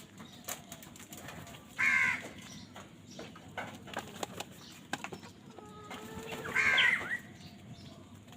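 Crows cawing: two harsh calls, one about two seconds in and a louder one near the end, with scattered short clicks and taps between them.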